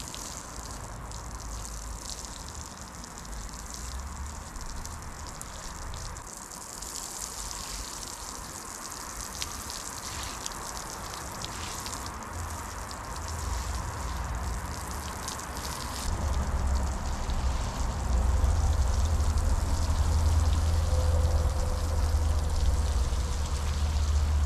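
Water hissing from a garden hose spray nozzle and pattering onto a bed of sand, wetting it down. A low rumble builds up from about halfway and is loudest near the end.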